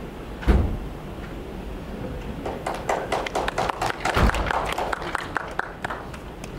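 A low thump about half a second in, then an uneven run of sharp taps for about three and a half seconds, loudest around four seconds in.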